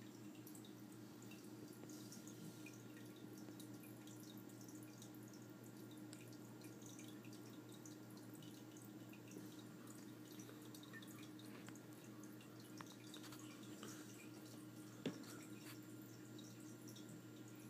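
Faint aquarium internal filter running: a steady low hum with water trickling and dripping at the surface. One sharp click about fifteen seconds in.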